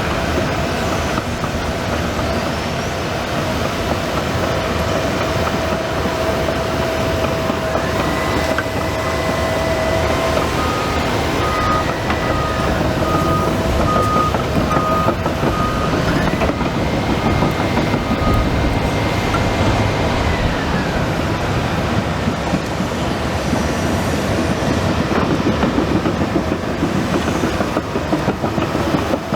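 Develon DD130 crawler bulldozer at work: engine running under load with its steel tracks clanking and squealing. Through the middle stretch a reverse alarm beeps about once a second for several seconds as the dozer backs up.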